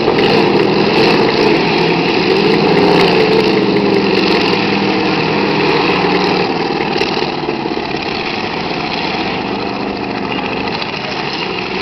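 Several demolition derby cars' engines running together, their pitch rising and falling as the drivers rev, and easing off a little about two-thirds of the way through.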